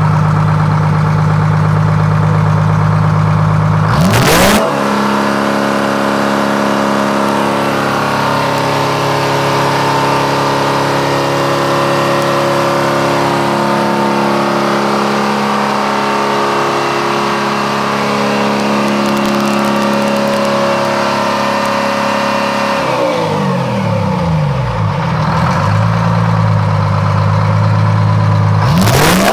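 Detroit Diesel 6-71 two-stroke inline-six diesel running on a test stand. It idles, is revved up sharply about four seconds in and held at a steady high speed, then slows back down to idle and is revved up again at the end.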